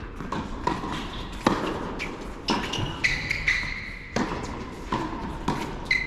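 Tennis balls struck by racquets and bouncing on the court during a doubles rally, a string of sharp hits and bounces that echo in the indoor hall, with a few high squeaks of shoes on the hard court.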